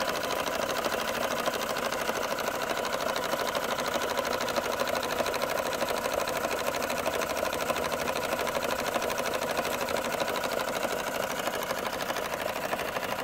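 1925 Bing toy live-steam engine running steadily at speed, driving its small dynamo, with a fast, even mechanical rhythm.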